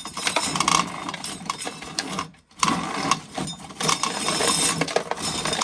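Dry ears of corn being shelled, the kernels clattering off the cobs in a continuous rattle that stops briefly about two and a half seconds in.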